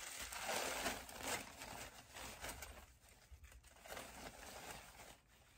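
Thin tissue paper rustling and crinkling as it is unwrapped by hand, in uneven bursts that are loudest in the first second and a half and again around three to four seconds in.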